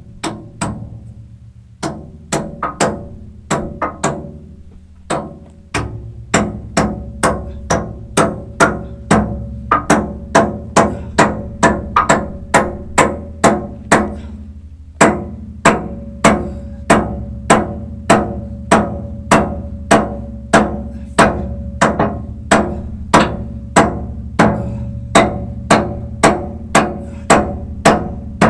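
Hammer blows driving a retaining pin into a loader bucket tooth, steel on steel, irregular at first and then a steady two strikes a second, over a steady low hum.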